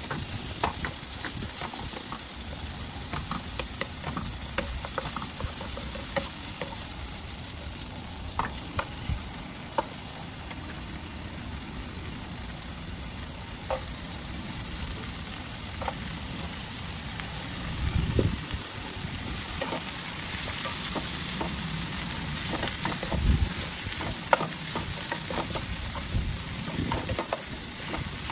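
Meat and leafy greens sizzling in a nonstick frying pan over a gas burner, stirred with a wooden spatula that clicks and scrapes against the pan. A few low thuds come about two-thirds of the way in.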